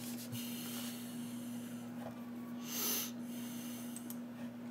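Headphones being pulled on over a knit beanie, a soft rustle in the first second, then a single short breath through the nose about three seconds in, over a steady background hum.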